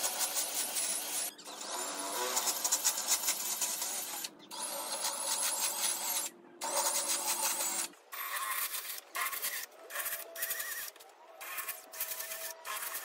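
AEG cordless drill spinning a sandpaper flap attachment against the ends of wooden rails: the motor whine with the scratch of paper on wood. It runs in bursts with brief pauses, and the bursts become shorter and choppier about two-thirds of the way through.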